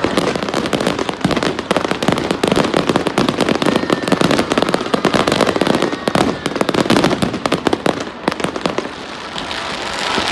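New Year's fireworks going off in a dense, rapid crackle of pops, thinning out about eight seconds in.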